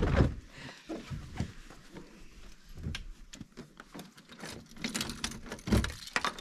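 Hard plastic clicks and knocks from a Thule Force XT roof box as hands press along the closed lid to latch it shut, with a run of louder knocks about five to six seconds in.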